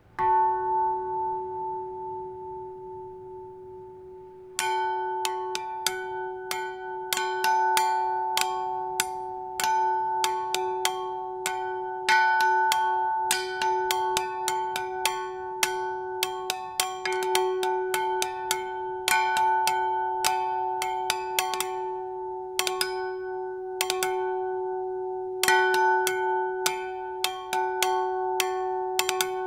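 Small church bell struck by hand with two sticks in a free improvisation. A single stroke rings and fades for about four and a half seconds, then quick, irregular strikes follow, some in fast clusters, over the bell's steady ringing.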